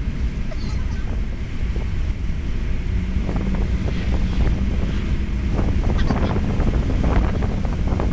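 Steady road and wind rumble inside the covered bed of a moving pickup truck, with a faint steady hum joining about three seconds in and a few light rattles near the end.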